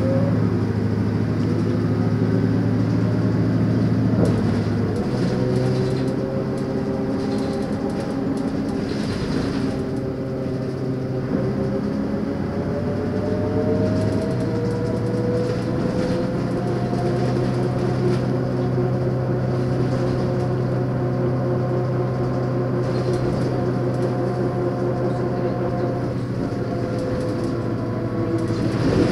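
Leyland Lynx single-deck bus's diesel engine and drivetrain under way, with a whine that rises in pitch, drops back twice as the gears change, then holds steady at speed.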